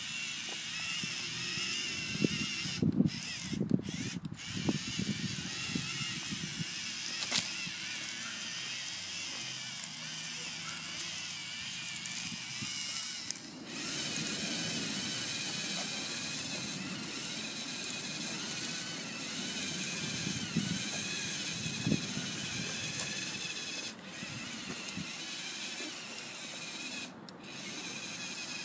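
Lego Mindstorms EV3 tracked robot driving, its motors and gearing running with a ratcheting, clicking mechanical sound and scattered sharp clicks in the first half. The sound changes about halfway through, as the robot moves on across brick.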